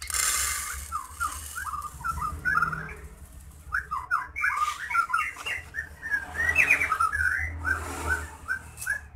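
Small caged birds chirping over and over, in quick short high notes several times a second, over a low hum. In the first second, white millet seed hisses and rattles as it is poured from its bag into a plastic seed cup.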